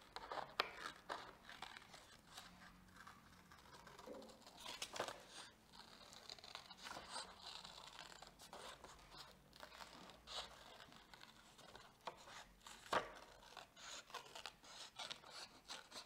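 Scissors cutting out a heart shape from a sheet of orange paper: quiet, irregular snips with paper rustling and scraping between them, one sharper snip about 13 seconds in.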